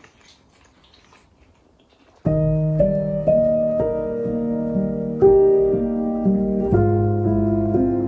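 Brief quiet, then piano music starts abruptly about two seconds in and plays a slow melody over chords, with a low bass note coming in near the end.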